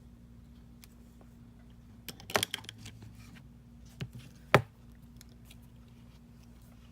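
Small tools and phone parts handled on a workbench: a quick cluster of clicks and taps about two seconds in, then two sharper knocks, the second the loudest, over a steady low hum.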